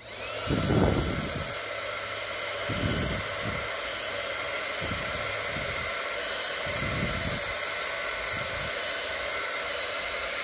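Hair dryer switched on and blowing hot air steadily, its motor whine rising briefly as it spins up at the start and then holding even.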